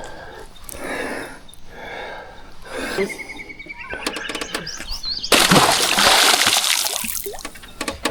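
Water splashing and sloshing in soft swishes, then a louder rush of splashing for about two seconds, starting a little over five seconds in.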